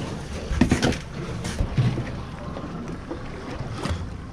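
Wind buffeting the microphone on a small boat at sea, over a low rumble, with a few sharp knocks in the first two seconds.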